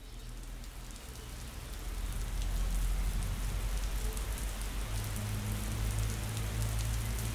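Steady rain falling: an even hiss with scattered ticking drops. It grows louder over the first two seconds, over a low steady hum.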